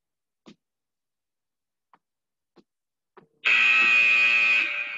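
A few faint knocks, then about three and a half seconds in a loud electronic tone of several steady pitches sounds together for about a second and a half. It is an interval timer signalling the end of a work interval.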